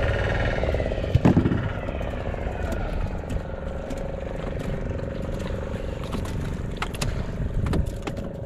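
A fishing boat's engine running steadily, with one sharp knock about a second in and a few short clicks near the end.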